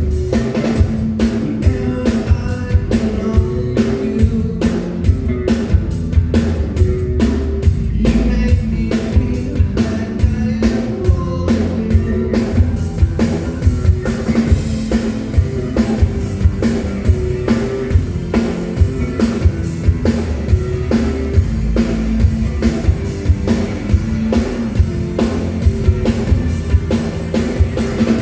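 Live rock band playing an amplified song: drum kit keeping a steady, even beat under electric guitar and bass.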